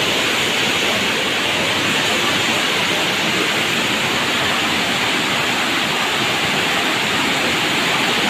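Waterfall: a steady, loud rush of white water cascading over rocks.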